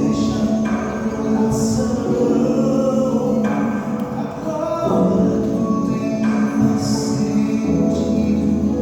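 Music: sustained chords that change every second or two, with a few short high swishes, possibly carrying singing.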